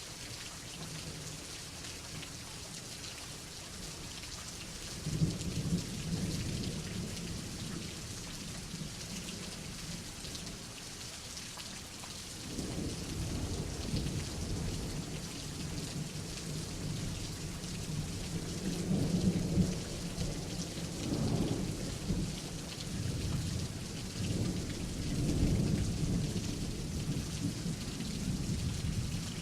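Steady rain falling, with thunder: a short rumble about five seconds in, then long rolling thunder from about halfway through that swells several times.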